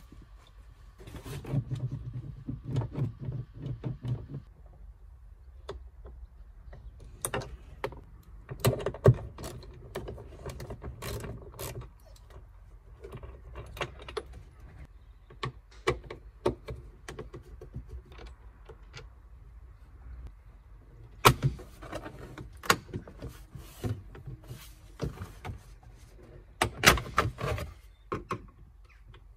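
Plastic interior trim on a Citroen Berlingo's rear quarter pillar being worked loose and pulled off by hand: irregular clicks and knocks of plastic and clips, with scraping and rubbing, and a few sharp clicks as clips let go.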